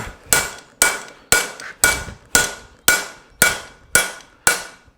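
Steady hammer blows on a farrier's fuller, driven around the toe of a hot steel horseshoe to re-crease the nail groove: about nine evenly spaced strikes, roughly two a second, each with a short metallic ring.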